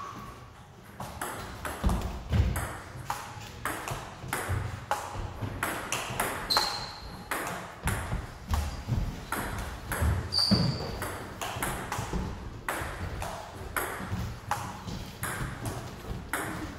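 Table tennis ball clicking back and forth off paddles and table in a long rally, about two to three sharp clicks a second. A few low thuds and two brief high squeaks come in among the clicks.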